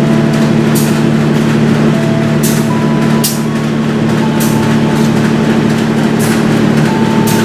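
Diesel locomotive engine running at a steady low rumble, with short bursts of hiss every second or so.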